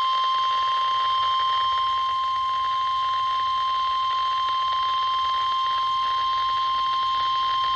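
NOAA Weather Radio's 1050 Hz warning alarm tone: one steady, unbroken high beep over a light radio hiss. It signals that a warning-level alert follows, here a tornado warning.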